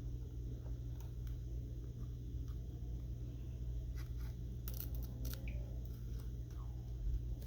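Scattered small clicks and light scrapes of tools and parts being handled during a phone repair, over a steady low hum.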